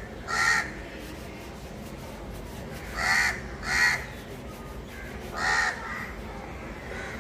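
A bird calling outdoors: four short, harsh calls, one just after the start, a pair about three seconds in, and one more about five and a half seconds in.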